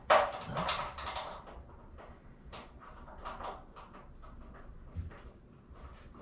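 Irregular metal clicks and knocks of a bolt and lock washer being handled and fitted by hand, the loudest knock right at the start.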